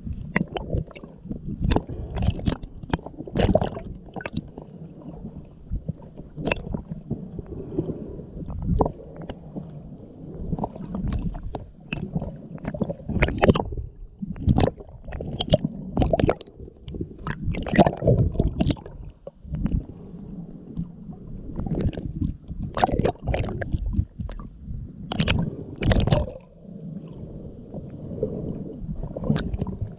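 Muffled underwater sound picked up by a submerged head-mounted camera: water gurgling and swishing around it, with irregular sharp clicks and knocks throughout.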